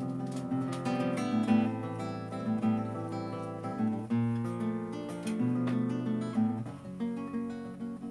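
Acoustic guitar played solo, a run of picked notes and chords, dying away near the end.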